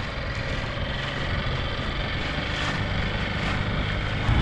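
Outboard motor of an inflatable dinghy running steadily under way, with wind buffeting the microphone.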